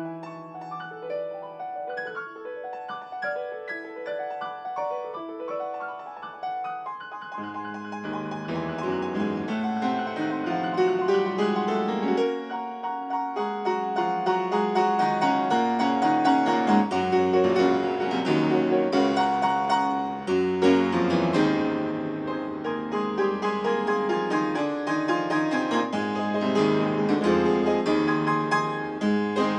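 Solo piano playing a Romantic classical piece. It starts fairly soft in the middle and upper range, then about seven seconds in low bass notes come in and the playing grows louder and fuller, with busy, rapid high figures over it.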